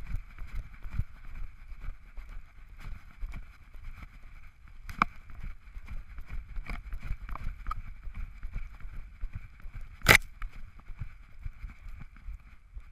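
A dog running through snow with a GoPro camera strapped to its back: irregular paw thuds and snow crunches close to the camera, with the camera housing rubbing against the harness. One sharp knock late on is the loudest sound.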